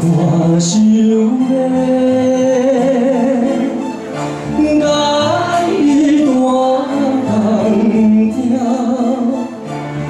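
A man singing a slow Taiwanese Hokkien ballad live into a handheld microphone over instrumental accompaniment, in long held phrases. The sound dips briefly about four seconds in and again near the end.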